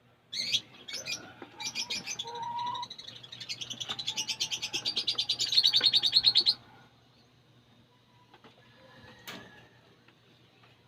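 Lovebirds chattering: a fast run of high, repeated chirps that speeds up and grows louder for about six seconds, then stops abruptly, leaving only a few faint chirps.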